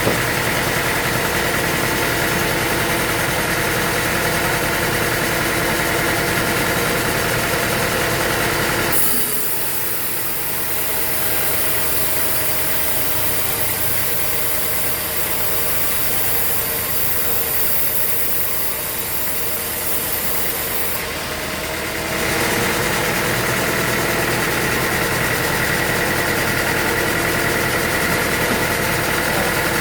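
Sawmill machinery's engine running steadily. From about nine seconds in to about twenty-two seconds the engine tone drops back and a high hiss takes over, then the steady engine tone returns abruptly.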